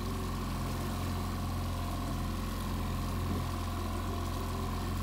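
Outboard boat motor running steadily at trolling speed, a low, even engine hum with a faint steady whine above it.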